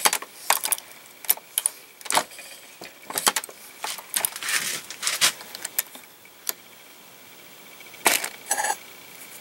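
Metallic clicks and clinks of a hand-operated reloading press as a 147 grain bullet is seated in a 9mm Luger case. The press stops partway through, and a cluster of clinks with a brief metallic ring comes near the end as the loaded round is handled.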